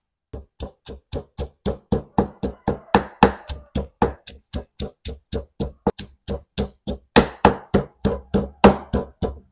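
Pestle pounding fresh curry paste of herbs, chillies, garlic and salt in a stone mortar: a steady rhythm of about four strikes a second, starting about a third of a second in.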